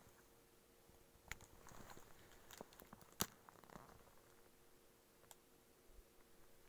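Faint handling noise: a few soft clicks and a brief rustle, the sharpest click about three seconds in and another near five seconds, over a faint steady hum.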